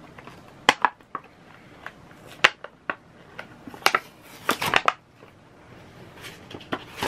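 Irregular clicks, taps and short rustles of small plastic items and packaging being handled and unpacked.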